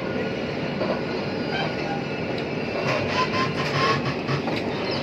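Rumble and wheel noise of the Swarna Jayanti Rajdhani Express, heard from inside a passenger coach as the train comes to a halt at a station.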